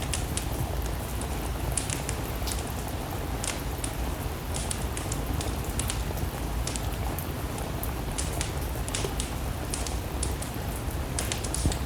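Steady rain hiss with a low rumble, mixed with irregular sharp crackles and pops from a wood fire burning in a fireplace.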